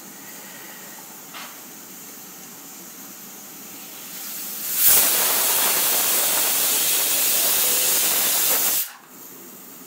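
Stovetop pressure cooker whistling: steam forces out under the weighted valve as a loud hiss for about four seconds, building up briefly and then cutting off suddenly. It is the sign the cooker has come up to pressure, one of the whistles counted to time the cooking.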